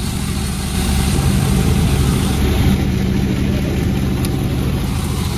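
Panda36 chainsaw running steadily, louder from about a second in.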